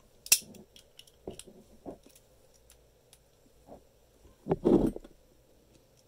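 Antique Yale & Towne lion-face lever padlock being worked by hand: a sharp metallic click early on as the brass shackle is pushed shut, then a few faint clicks of the key in the lock. About four and a half seconds in comes a duller clunk and rattle of the lock and key ring being handled.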